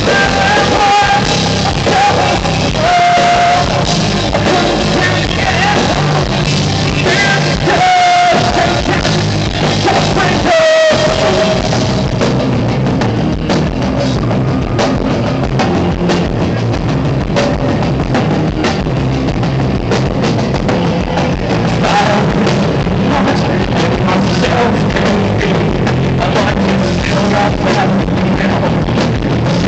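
A rock band playing live, with drums and guitars. A singer holds long notes through roughly the first eleven seconds, then the band plays on without clear vocal lines.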